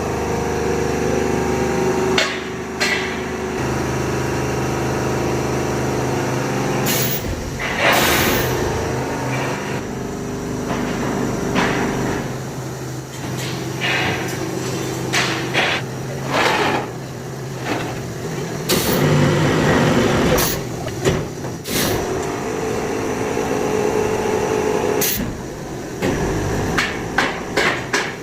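A truck engine running steadily, with several loud bursts of air hiss. Sharp metal knocks, like hammering, come more often in the second half.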